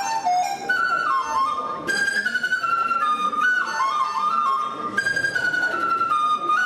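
Background music led by a flute playing a melody that steps up and down, over a fuller accompaniment.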